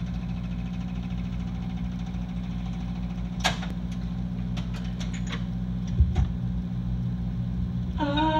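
A machine with a turning drum running steadily with a low, even hum, with a few sharp clicks around the middle and a low thump about six seconds in. Music starts near the end.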